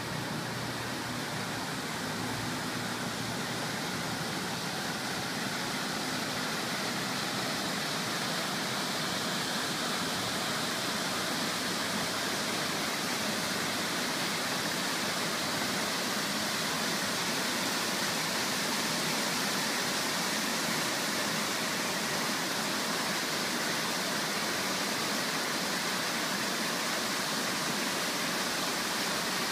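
Plaza fountain with a ring of many vertical water jets splashing down into its wide basin: a steady rush of falling water that grows a little louder over the first several seconds and then holds.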